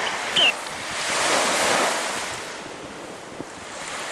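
Rushing wind and water noise buffeting the microphone, swelling and easing, with one short high squeak about half a second in.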